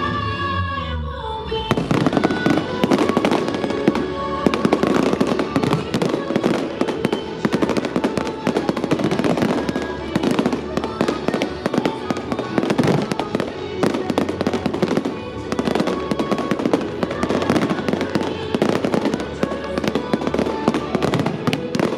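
A fireworks barrage: many rapid, overlapping bangs and crackles that break in sharply about two seconds in and keep up densely, over loud music.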